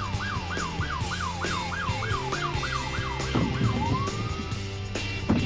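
Police car siren in yelp mode, a fast up-and-down whoop about three times a second, switching near the end to one slower rising wail that fades away. It is heard from inside a car, over steady background music, and a sharp click comes just before the end.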